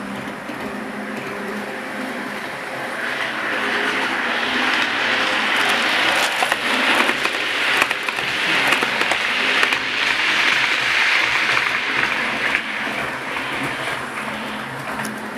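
A 00 gauge model train running on the track: the electric motor whirs and the wheels click on the rails. It grows louder as the train passes close by, then fades.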